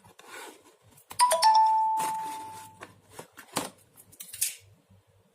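A bell-like chime rings about a second in, a clear tone that fades away over about a second and a half, amid short rustles and clicks of a cardboard box's packaging seal being handled.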